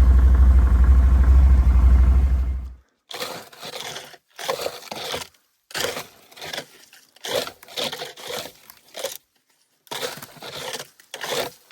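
A loud, steady low rumble that cuts off suddenly near three seconds in, followed by crunching and scraping in short bursts about once a second: footsteps through dry brush and vegetation.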